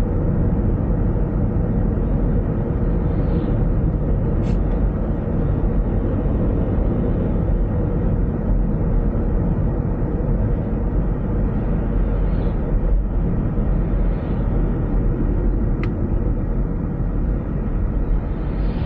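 Steady road and tyre noise of a car driving at speed, with engine rumble in the low end and an even level throughout. Two brief faint ticks come about four seconds in and near the end.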